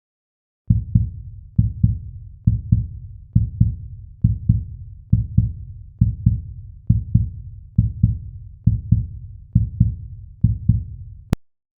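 Heartbeat sound effect: low, paired lub-dub thumps repeating evenly at about 70 beats a minute. It ends with a single sharp click.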